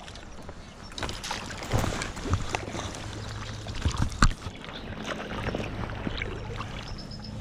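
River water splashing and sloshing, with a few sharp splashes, the loudest about four seconds in, as a small brown trout is played on the line.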